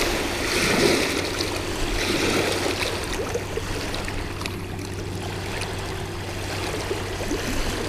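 Small waves lapping and splashing against a rocky lake shore, a steady watery wash.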